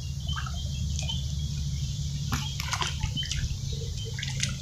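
Hands squelching and slapping in soft, wet pond mud while groping for fish, with clusters of sharp wet smacks about halfway through and again near the end. Birds chirp in the background.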